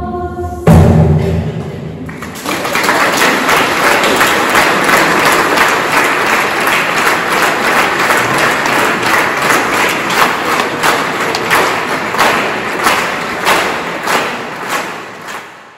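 Audience applauding after a choir song, the clapping dying away near the end. Under a second in, the song ends on one loud final thump.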